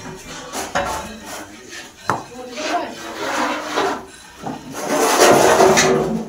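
Flat wooden paddles scraping and stirring milk against the walls of metal karahi pans as it is reduced to khoya, in uneven strokes that grow loudest near the end.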